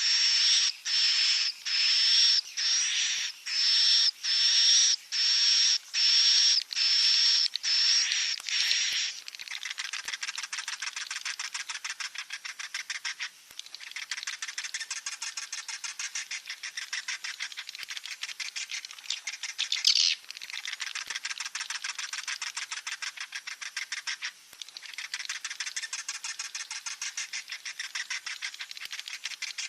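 Swiftlet chicks calling: first a run of short, loud, high-pitched calls repeated a little more than once a second, then, about nine seconds in, a long, quieter stretch of fast buzzing chatter broken by a few short pauses.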